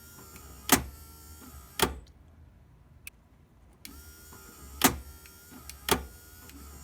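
Ferrari Mondial 3.2's electric central door-lock actuator working with the door panel off: a whirring motor run with two sharp clunks about a second apart, heard twice.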